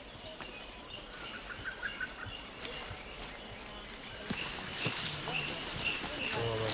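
Steady, high-pitched drone of insects, a single unbroken shrill tone, with weaker scattered chirps beneath it.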